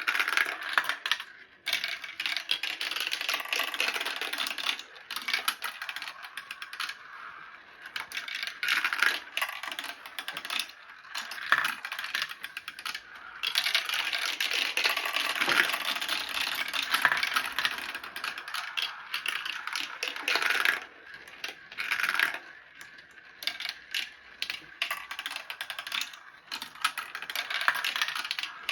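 Marbles rolling and clacking down a marble run: a dense, irregular patter of quick clicks that thins out briefly a few times.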